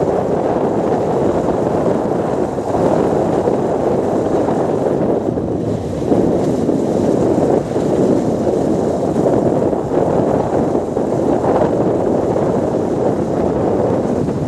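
Wind buffeting the phone's microphone: a loud, rough, uneven rumble with no engine note in it.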